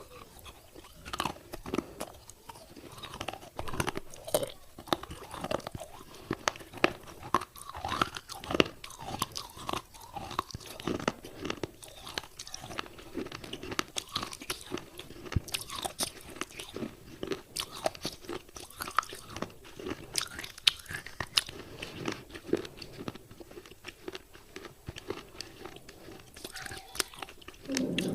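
A person biting and chewing pieces of wet clay pot, with dense, irregular crunching and crackling.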